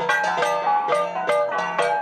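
Instrumental music: a bright melody of quick notes, about four a second, over a low held tone.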